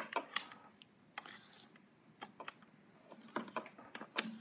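Light, irregular clicks and taps of a USB cable plug and plastic OTG adapter being handled and fitted into a laptop's port.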